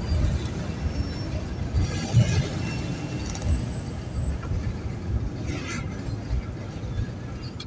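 Steady low road and engine rumble heard from inside a moving vehicle, with uneven buffeting in the bass.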